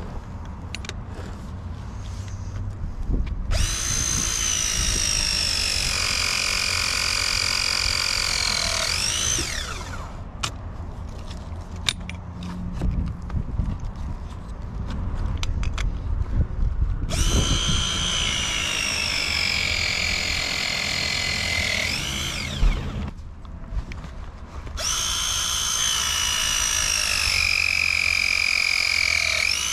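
Milwaukee battery press tool crimping copper press fittings, three press cycles of about five to six seconds each. In each the motor whine sinks slowly in pitch under load, then sweeps quickly up at the end as the jaws finish and release.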